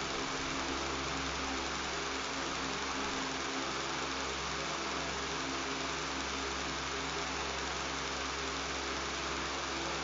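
Electric fan running steadily, an even rush of air with a low motor buzz underneath.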